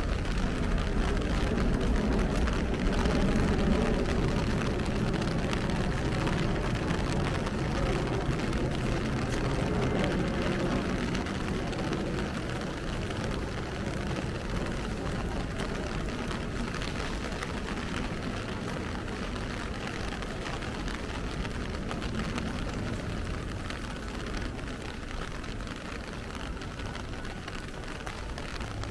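Rain pattering on an umbrella and a wet street, mixed with the low rumble of road traffic. The rumble is loudest over the first ten seconds or so, then slowly fades.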